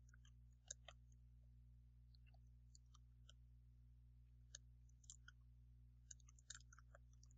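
Faint, irregular keystrokes on a computer keyboard as text is typed, coming in small clusters of clicks over a steady low hum.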